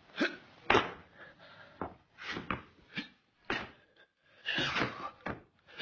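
Martial-arts kicks and foot stamps on a wooden floor: an irregular run of short, sharp thuds and swishes, about ten in all.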